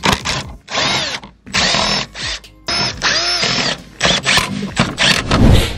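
Cordless power driver driving screws into a license plate frame in about five short bursts, its motor whine rising and falling in pitch with each trigger pull.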